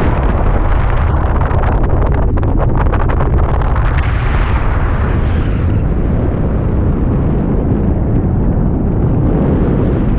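Wind noise from airflow hitting the microphone in paragliding flight: a loud, steady rumble, with fast rattling gusts for a few seconds near the start.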